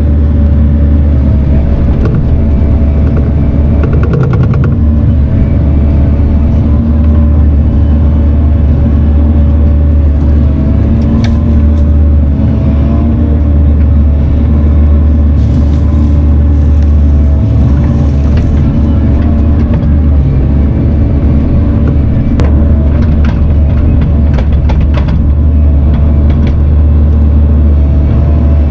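Diesel engine of a Bobcat compact machine running steadily under work, heard close up, with a few short sharp knocks along the way.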